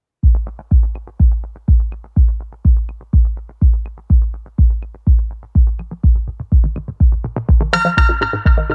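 Electronic background music: a deep kick drum on a steady beat, about two a second, with a bright synth chord coming in near the end.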